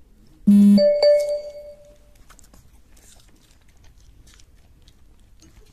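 A short buzzing tone, then a ringing chime that fades over about a second; faint crunching clicks follow.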